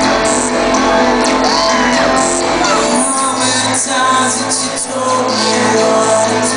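A live rock band plays a song in a large hall: held keyboard chords with a light tap about once a second, as voices shout and sing over it. The deep bass drops out for a moment midway.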